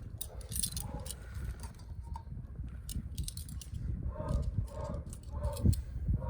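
Wind buffeting the microphone as a constant low rumble, with scattered light clicks and knocks and a few short pitched sounds a little past the middle.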